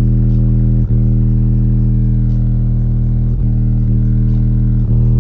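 A car audio system playing bass-heavy music loud, led by two Orion HCCA 12-inch subwoofers in a ported box tuned to 38 Hz: a held deep bass note that drops out briefly three times.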